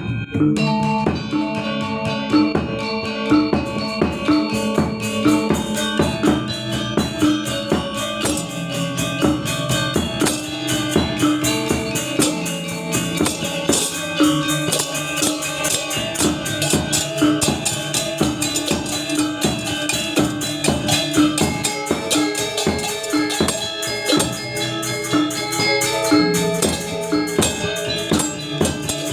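Balinese gamelan gong ensemble playing: a dense stream of fast, ringing struck bronze notes over a steady repeated figure, with percussion underneath.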